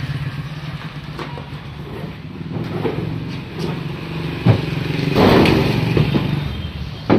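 Motorcycle engine running as it rides up close, getting louder and loudest about two thirds through. Sharp wooden knocks of plywood sheets being slid off the truck bed come about halfway and again near the end.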